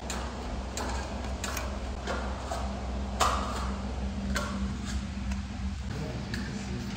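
A flexible plastic spatula scrapes and spreads paint across a wall in short strokes at uneven intervals, about eight of them, over a steady low hum.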